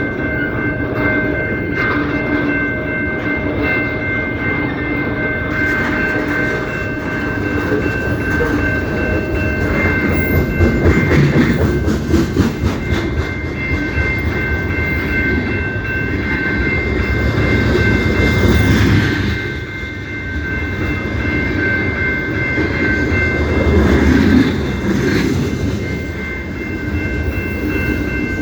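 CP Rail train rolling by with a steady rumble and its wheels clacking over the rail joints, most plainly in the middle. A steady high ringing tone runs under it, easing off briefly past the middle.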